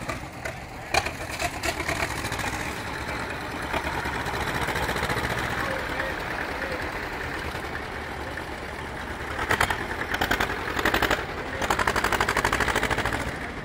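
Old diesel tractor engines running at a slow crawl. A close engine's rapid, even firing beat swells louder for a few seconds near the end.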